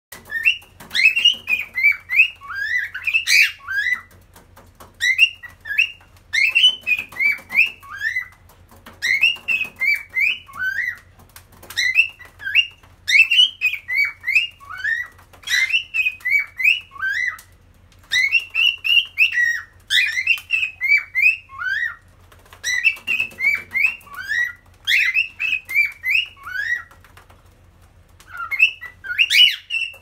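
Cockatiel singing: phrases of quick whistled notes gliding up and down, the same tune repeated over and over with short pauses between phrases.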